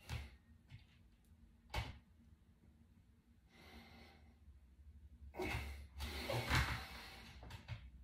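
A person breathing out hard several times while holding flexed poses, with a couple of short sharp knocks from bare feet shifting on a wooden floor.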